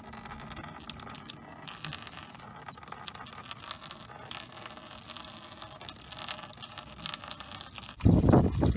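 Old coolant draining from a 1989 Dodge Dakota's opened radiator petcock: a light patter of the thin stream and drips splashing below. Near the end it turns suddenly into a louder, steady pour as the stream lands in the coolant already collected in a drain pan.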